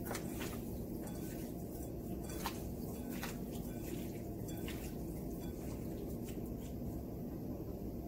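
Raw shrimp being tossed by hand in seasoning in a bowl: scattered soft clicks and wet slaps from the shrimp, over a steady low background hum.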